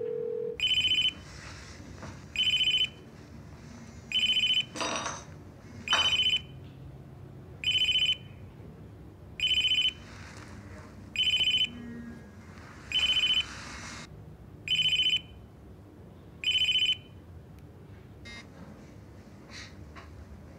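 Telephone ringing: a high electronic ring tone beeps ten times, about every one and a half to two seconds, then stops. A couple of brief clatters come about five and six seconds in.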